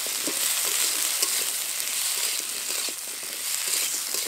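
Chunks of raw vegetables sizzling in hot oil and mustard paste in a metal kadai, with a spatula scraping and knocking against the pan as they are stirred at irregular intervals.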